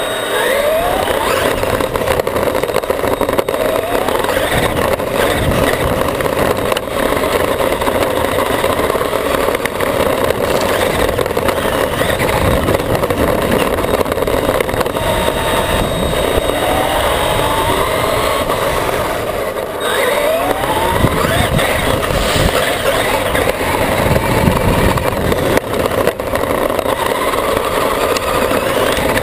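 Traxxas E-Maxx electric RC monster truck driving fast over grass, heard from a camera mounted on the truck: a steady rattle of drivetrain and tyres, with the electric motor whine rising in pitch as it accelerates several times.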